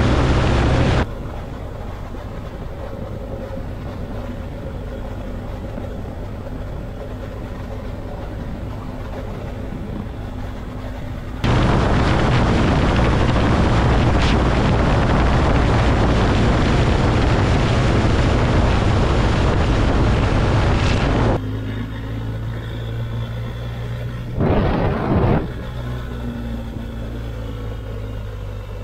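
BMW R 1250 GS Adventure motorcycle on the move: the boxer-twin engine running under a steady rush of wind. It comes in edited stretches that switch abruptly between louder and quieter about a second in, about eleven seconds in and about twenty-one seconds in, with a brief loud swell near twenty-five seconds.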